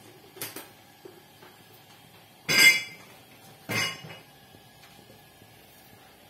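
Three metallic clanks from a steel wok, about half a second, two and a half seconds and nearly four seconds in; the middle one is the loudest and rings briefly.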